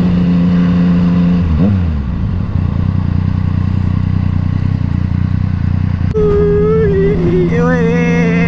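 Motorcycle engine running at steady revs. About one and a half seconds in its pitch drops and it settles at lower revs; about six seconds in the revs rise again, with a wavering higher tone over it near the end.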